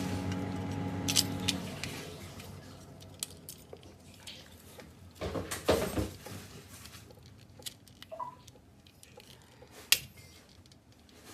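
Hands working the refrigerator compressor's plastic start relay open: scattered small clicks and scrapes, a longer rustle about five seconds in, and a sharp click near the end. A steady hum cuts off about a second and a half in.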